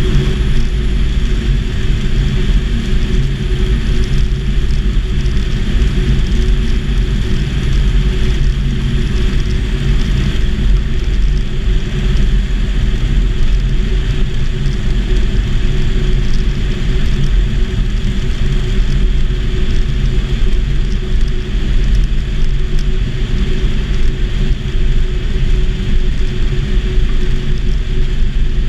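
Light aircraft engine and propeller of a homebuilt Volksplane VP-2 running steadily, heard from inside the cockpit with wind rush.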